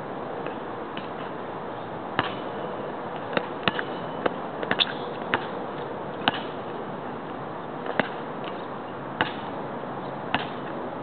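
Basketball bouncing on an asphalt court: sharp, irregular knocks over a steady hiss, settling near the end into dribbling about once a second.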